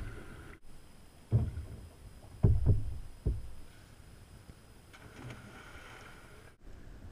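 Kayak paddling, with four low knocks from the paddle on the hull between about one and three and a half seconds in. Faint distant splashing follows near the end.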